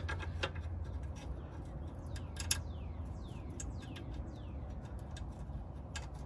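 A bird calling: a run of quick downward-sliding chirps between about two and four and a half seconds in. Scattered light clicks throughout, with one sharper click about two and a half seconds in.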